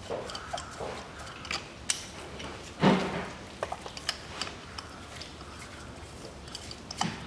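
Scattered metal clicks and clinks of a 16 mm spark plug socket on an extension being worked in the engine's spark plug wells while the old plugs are removed, with one heavier knock about three seconds in.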